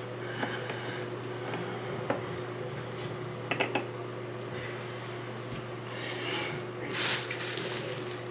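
Light clicks and clinks of faucet parts being handled during reassembly, over a steady low hum, with a short hiss about seven seconds in.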